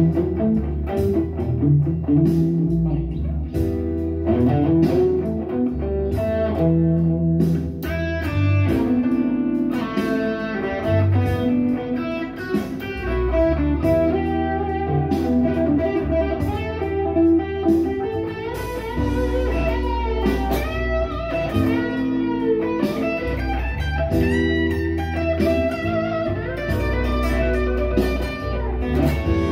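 Telecaster electric guitar played through overdrive pedals, improvising blues lead lines with string bends over a steady low bass part.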